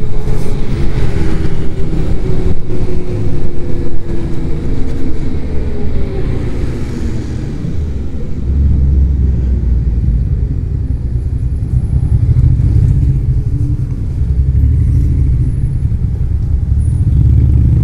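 Zero DSR electric motorcycle ride: a loud low rumble of wind buffeting the mounted camera's microphone, with road noise and, in the first several seconds, a faint whine from the electric motor that slowly falls in pitch as the bike eases off.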